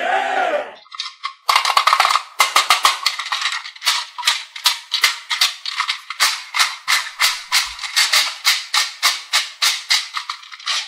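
A pink plastic rotating-bead puzzle cylinder being twisted section by section: a quick run of sharp plastic clicks, about four a second, with the balls inside rattling. A brief wavering sound comes just before the clicking starts.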